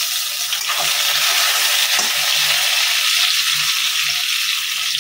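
Chopped tomato, onion and potato sizzling steadily in hot oil in a kadhai, with a couple of faint scrapes of a metal spatula against the pan.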